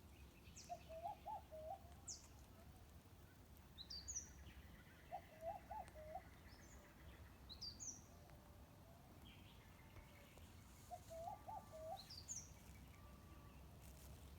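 Faint birdsong: a short phrase of several quick low warbled notes, repeated three times, with brief high chirps that sweep down in between.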